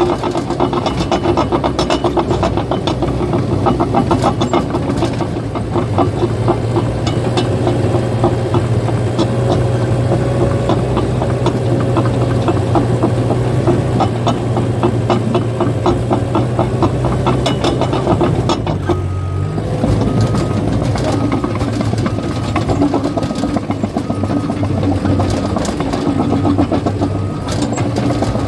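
Caterpillar bulldozer's diesel engine running under load, with the steel tracks clattering in a fast, even rhythm. About two-thirds of the way through, the engine note dips briefly, and a steady high tone comes in after it.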